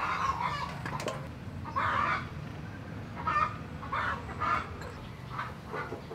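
Chickens clucking: a string of short calls, one every half second to second and a half, over a low steady hum.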